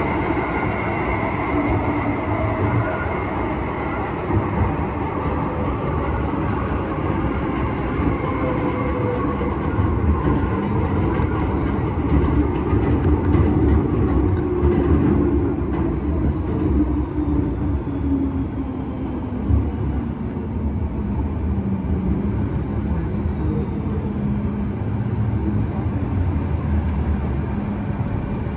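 MTR M-train traction motors whining, with several tones slowly falling in pitch, over the steady rumble of the wheels on the track. This car's motors are known for an odd howl.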